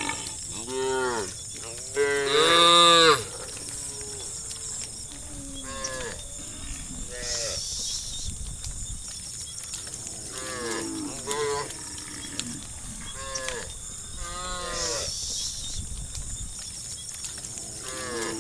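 Cattle mooing: a series of separate moos from several cows, each rising and falling in pitch, the loudest and longest about two seconds in.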